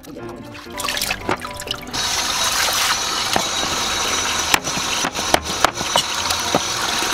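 Tap water running steadily into a basin in a sink, starting about two seconds in, with several sharp knocks of a cleaver striking a wooden chopping board as a fish tail is cut.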